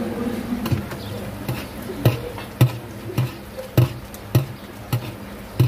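Steady knocking: sharp strikes with a low thump, nearly two a second, over a low background hum.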